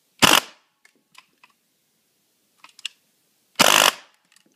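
Airsoft electric gun with a dual sector gear (DSG) gearbox firing two short full-auto bursts into a chronograph, about three seconds apart, with faint clicks between. The gun is not feeding every BB.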